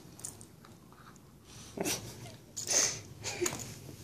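German Shepherd puppies play-biting each other, with wet mouthing and chewing noises. Three short, louder bursts come in the second half.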